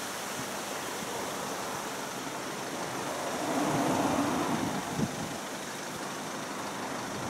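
Outdoor road traffic noise, with a passing vehicle swelling about four seconds in, then a short click about a second later.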